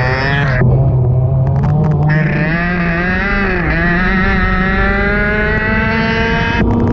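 Racing kart engine heard onboard, its pitch dipping and recovering through a turn, then climbing steadily for the last few seconds as the kart accelerates.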